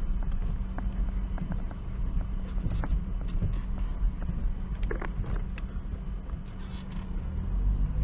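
UAZ-452 van heard from inside the cab while driving off-road: a steady low engine drone with the engine working hard, with frequent short rattles and knocks from the body and loose items in the cab.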